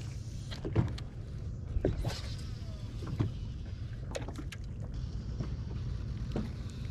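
Steady low rumble of a fishing boat on the water, with a scattering of sharp clicks and knocks from tackle and handling on the deck.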